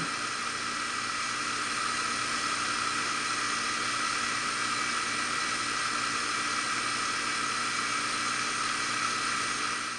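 Heat pump outdoor unit running steadily in heating mode: the compressor and condenser fan give an even rushing noise with a constant hum of several steady tones.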